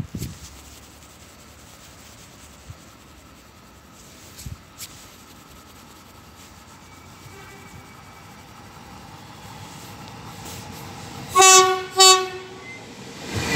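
Frecciarossa ETR 500 high-speed train approaching, its running noise slowly growing louder, then two short, loud horn blasts about half a second apart near the end.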